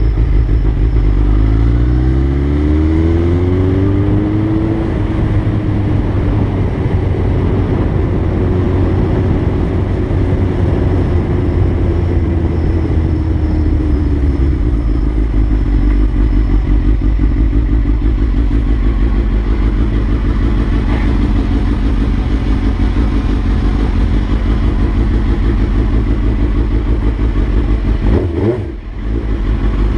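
Motorcycle engine under way: it accelerates with rising pitch over the first few seconds, then runs steadily at a cruising speed. Near the end the level dips briefly as the bike slows.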